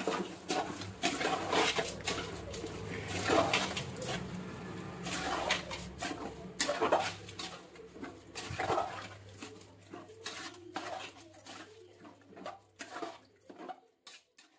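A metal spoon stirring wet rice and masala in a large aluminium pot, scraping and clacking irregularly against the pot's side, with a steady low hum underneath that stops near the end.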